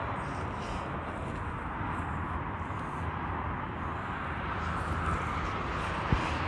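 Steady noise of road traffic passing on a highway, with one short knock about six seconds in.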